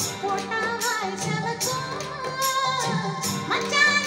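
A song with a singing voice and percussion, played through Chario bookshelf speakers driven by a Technics amplifier.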